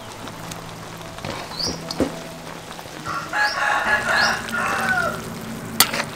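A rooster crows once, starting about three seconds in and lasting about two seconds, over soft background music. A sharp click comes near the end.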